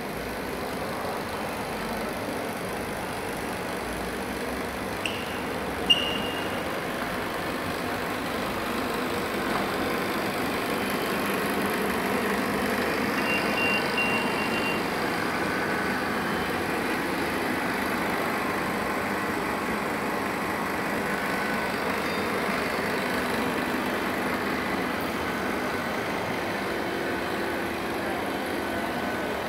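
A steady machine hum with air noise. There is a short high beep about five seconds in, a sharp click followed by a brief high tone about six seconds in, and a short run of high beeps around thirteen to fourteen seconds.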